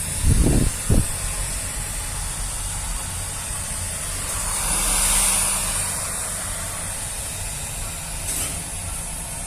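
Electric hair dryer running, a steady rushing hiss of blown air with a low rumble. A couple of low thumps come in the first second, and the hiss swells louder about halfway through.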